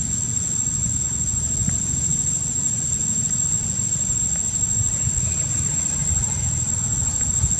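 Steady, high, thin drone of insects, with a low rumble of wind buffeting the microphone beneath it.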